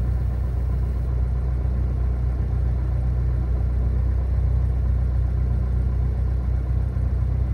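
Cessna 172R's four-cylinder Lycoming engine idling steadily with the aircraft stopped on the ground, a constant low drone.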